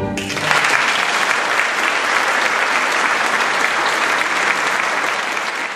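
The last notes of a string quartet die away at the very start, then an audience breaks into steady applause, which tapers off near the end.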